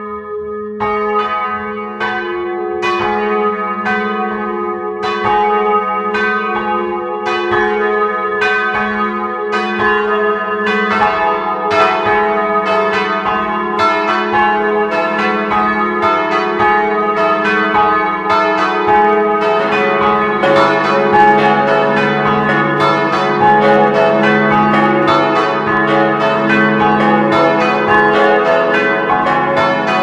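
Church bells of a four-bell peal tuned cis', e', fis' and as', swung and struck in a 'rising melody'. This is a simulation of the three 1929 bells with a planned smallest as' bell added. The bells come in one after another, so the strokes grow denser, and a deeper bell joins about twenty seconds in.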